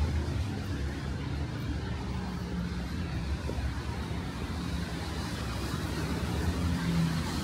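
City street traffic: the low, steady hum of car engines running.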